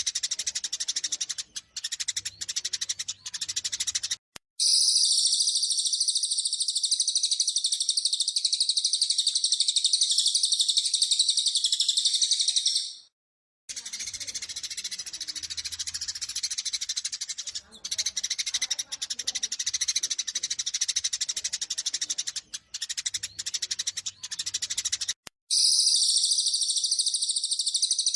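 Eurasian tree sparrows chattering in rapid, agitated fighting calls, broken by long stretches of dense, continuous high-pitched twittering. The sections start and stop abruptly, with brief silent breaks about four and thirteen seconds in, as in an edited master recording.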